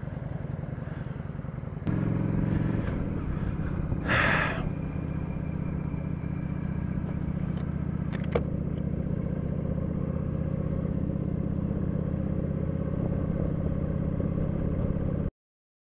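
Motorcycle engine idling steadily, getting louder about two seconds in, with a short hiss about four seconds in; the sound cuts off suddenly near the end.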